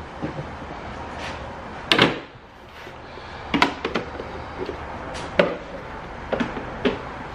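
Knocks and plastic clicks from a sit-on garage creeper being handled and its plastic cup-holder attachment being fitted, about nine sharp hits in all, the loudest one about two seconds in.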